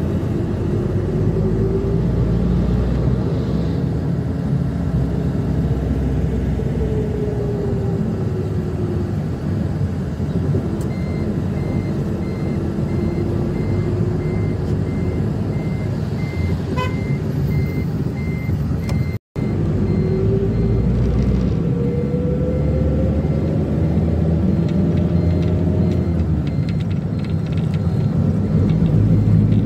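A minivan's engine running on the road, with steady road noise; the engine pitch rises and falls slowly as it speeds up and slows. From about a third of the way in, a high beep repeats rapidly and evenly until near the end.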